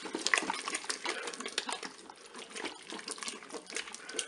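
Wooden spatula stirring thick beef and tomato stew in a Cookeo multicooker's pot: a run of irregular wet squelches and scrapes.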